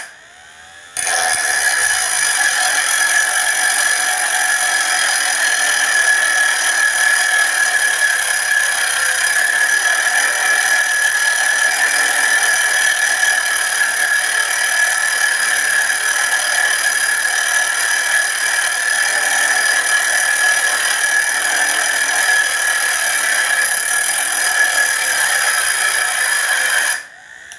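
Homemade angle grinder driven by a 12-volt 775 DC motor, its cutting disc grinding into an iron rod with a steady high-pitched whine. The sound drops away at the start, comes back about a second in, and cuts off near the end.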